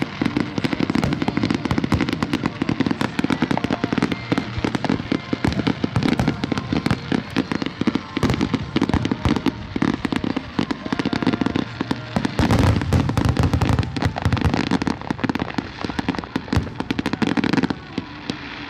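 Fireworks going off in a rapid, continuous string of pops and bangs, with a spell of heavier, deeper booms about two thirds of the way through.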